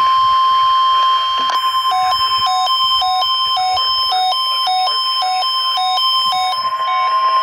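Weather alert radios going off for the NOAA Weather Radio weekly test. A steady, loud alarm tone runs throughout, and from about a second and a half in, pulsing beeps join it at about two a second.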